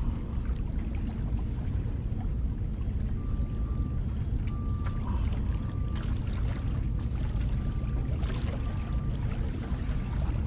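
Wind rumbling steadily on the microphone, with a faint short high squeak repeating about once a second from about three seconds in.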